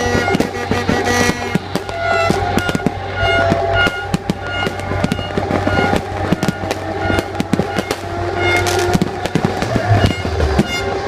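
A fast, continuous barrage of fireworks, with many sharp bangs and crackles in quick succession, over music.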